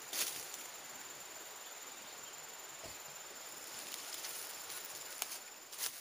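Steady high insect drone over a forest hiss, with a few brief ticks or rustles, the clearest just after the start and near the end.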